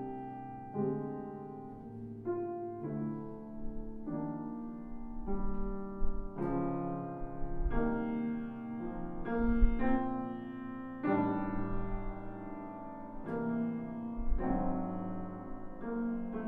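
Longato grand piano played solo in classical recital style, with chords struck roughly once a second and left to ring.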